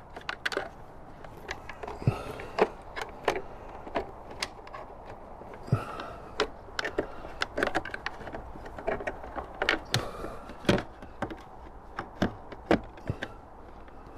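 Hard plastic piece being pushed and worked into its groove and tabs: a run of irregular clicks, taps and knocks of plastic against plastic, with a few duller thumps.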